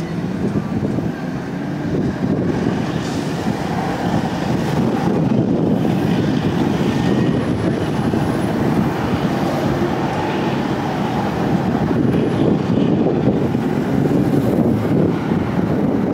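BNSF diesel locomotives running as they move off down the track, a steady low rumble that grows a little louder a few seconds in.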